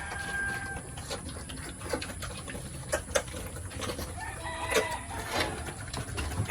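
Chickens clucking, with a short pitched call near the end that fits a rooster, among scattered faint clicks and knocks.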